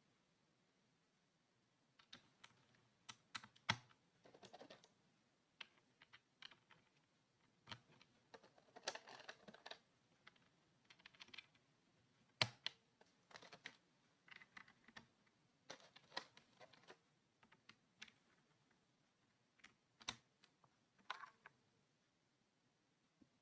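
Sparse, irregular clicks and clacks from a Vortex VX8 mechanical keyboard, single strokes and short clusters with pauses between them.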